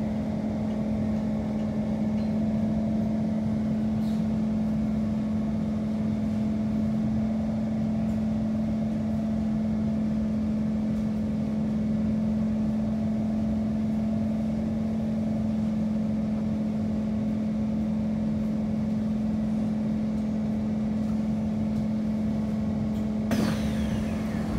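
Steady electrical hum and ventilation noise inside a Kawasaki C151 MRT car standing at a station, holding one constant low tone. Near the end comes a sudden hiss and clatter as the passenger doors open.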